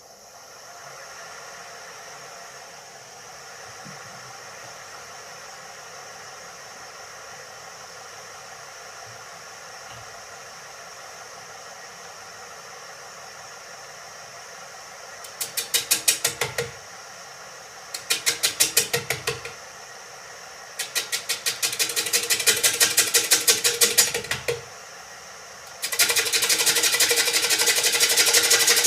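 Poolewood wood lathe motor running steadily with a sweet chestnut bowl blank spinning. Then a gouge cuts into the blank in four bouts, the last running on to the end, each a fast, even knocking as the tool strikes the high spots of the out-of-round, dried-oval blank on every turn.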